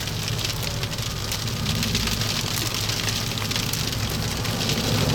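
Constant patter of sleet or freezing rain ticking on a surface, over the steady low rumble of a vehicle.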